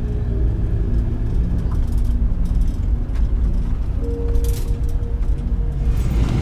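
Low, steady road and engine rumble heard from inside a moving vehicle's cabin.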